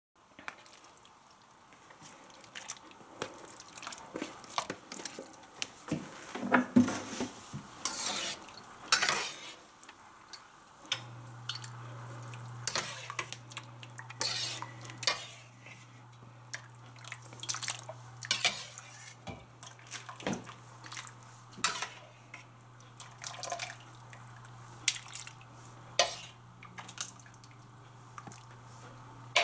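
Kitchen clatter of metal cookware: a slotted ladle clinking against a pan and a steel bowl, with water splashing and dripping as blanched squid pieces are scooped from boiling water into cold water. A steady low hum sets in about eleven seconds in.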